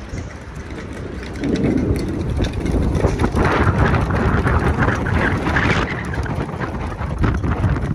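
Rainstorm with strong wind gusting and buffeting the microphone, growing louder about one and a half seconds in and easing off near the end.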